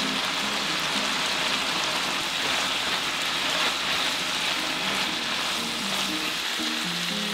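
Beef, shirataki noodles and vegetables sizzling steadily in a hot frying pan while being tossed with chopsticks, over light background music.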